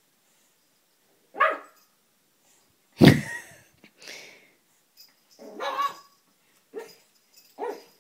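Pug puppy barking in about half a dozen short, separate barks, the loudest about three seconds in. It is barking at a heart-shaped bowl on the floor that it dislikes.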